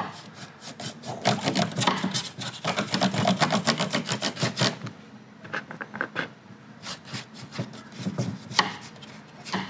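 Paintbrush scrubbing paint onto a wooden surface along the grain: quick back-and-forth scratchy strokes, dense for the first half, then fewer and further apart.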